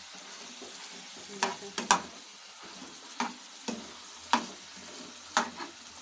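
Chicken frying in tomato gravy in a karahi with a steady sizzle, while a metal slotted spoon stirs it, scraping and knocking against the pan about seven times.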